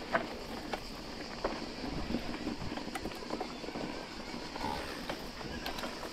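Electric mountain bike rolling over a dirt trail: tyres over stones and roots, with scattered clicks and rattles from the bike. A steady high buzz of cicadas runs underneath.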